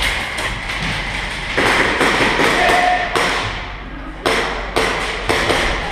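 Irregular sharp taps and thumps of airsoft play: airsoft gunfire and BBs striking walls and props in an echoing indoor arena.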